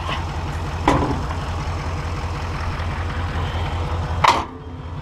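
Engine idling with a steady low throb, with two short knocks, one about a second in and one near the end.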